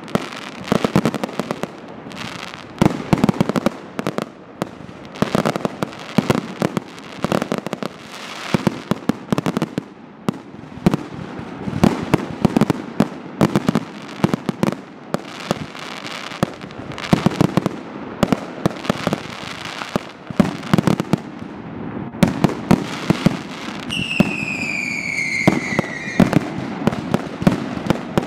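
Fireworks display: aerial shells and comets going off in rapid clusters of bangs and crackling. About three-quarters of the way through, a whistle falls in pitch for about two seconds.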